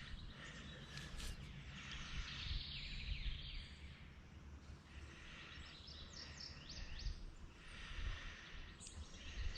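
Faint outdoor riverside ambience: birds chirping in patches over a low, steady rumble.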